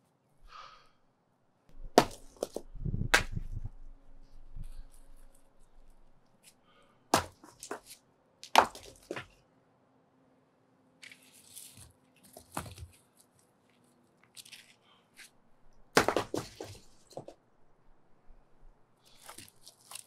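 Concrete sidewalk slabs being broken up with hand tools: a series of sharp, loud cracks of steel striking concrete at irregular intervals, the heaviest about two seconds in and again at about sixteen seconds, one with a deep thud just after it. Between the blows come softer scrapes and rattles of broken concrete.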